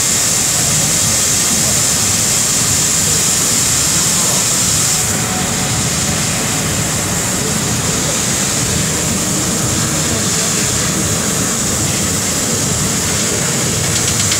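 Flatbed laser cutting machine cutting sheet metal: a steady loud hiss of assist gas from the cutting head with a low rumble underneath. The high hiss eases slightly about five seconds in.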